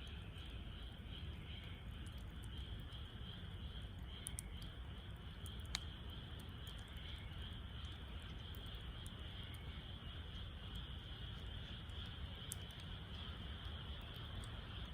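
Wood fire crackling in a Snow Peak fire pit, with scattered small pops and one sharper pop about six seconds in, over a steady high chirring of insects.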